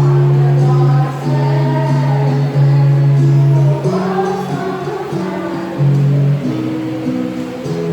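Choir singing with instrumental accompaniment: held low bass notes and chords under the voices.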